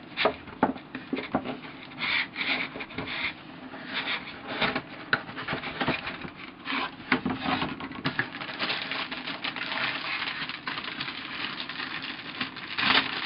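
Cardboard kit box being handled and its tight lid slid and worked off the base: scraping and rubbing of card on card with frequent light taps and knocks. Near the end a plastic parts bag crinkles as it is lifted out.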